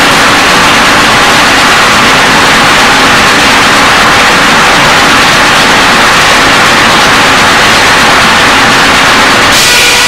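Sawmill machinery running: loud, steady, distorted mill noise. The tone changes suddenly near the end.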